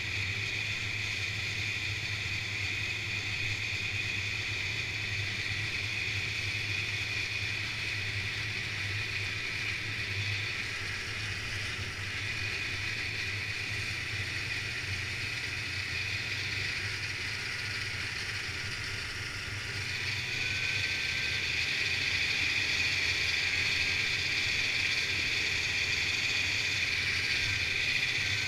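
Snowmobile engine running steadily while the sled travels along a snow trail. It grows louder about two-thirds of the way through.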